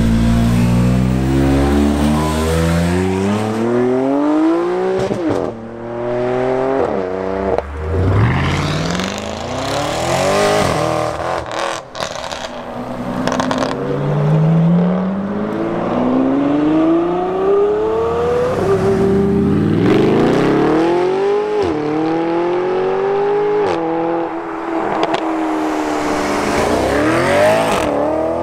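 Ferrari F12 N-Largo's V12 accelerating hard away, its note climbing through the gears with quick upshifts. More performance cars follow, each accelerating off in turn with rising engine notes broken by gear changes.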